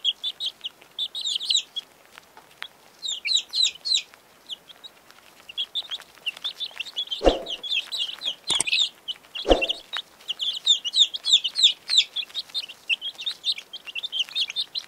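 Young chicks peeping: a busy flock of short, high cheeps, one after another. About halfway through come three low thuds.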